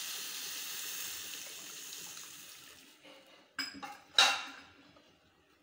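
Water poured from a plastic jug into a hot stainless steel kadai of frying masala, a steady hiss that dies away over about three seconds. Then a steel spoon knocks against the pan twice, the second knock louder.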